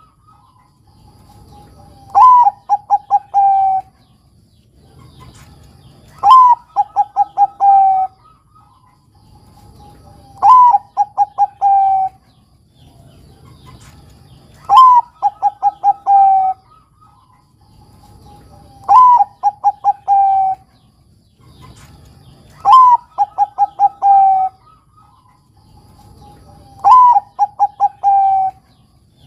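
Zebra dove of the Bangkok perkutut type cooing its song: seven repeated phrases about four seconds apart, each a rising opening note, then a quick run of short staccato coos and a longer final note.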